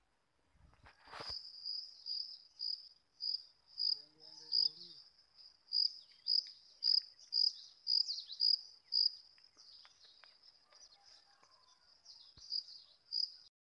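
Cricket chirping at about two chirps a second, high-pitched and regular, pausing for a couple of seconds before resuming near the end. There is a single sharp click about a second in.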